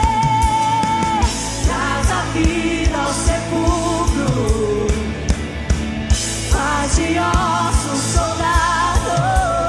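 Live worship band: women's voices singing a Portuguese worship song over acoustic guitar and a steady beat, with a long held sung note in the first second.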